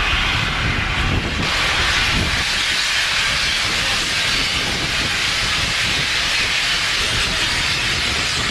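BR Standard Class 8 steam locomotive 71000 Duke of Gloucester venting steam in a loud, steady hiss that swells about a second in.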